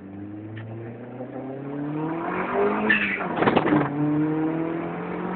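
Car engine revving, its pitch climbing steadily for about three seconds and then held at the higher speed. A short, loud crackling burst comes about three and a half seconds in.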